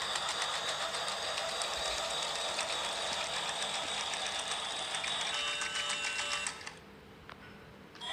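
Toy train running: a small motor's steady whine with rapid fine clicking from its mechanism. It cuts out about 6.5 seconds in and starts again right at the end.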